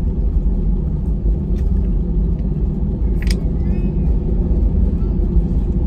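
Steady low rumble in the cabin of a flynas Airbus A320-family airliner on its landing roll, engines and wheels on the runway just after touchdown. A short click about three seconds in.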